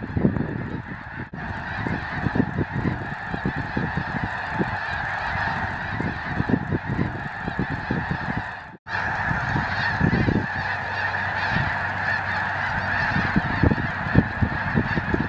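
A huge flock of snow geese calling all at once as they fly in to land: a dense, unbroken chorus of overlapping honks and yelps. The chorus cuts out for an instant about nine seconds in.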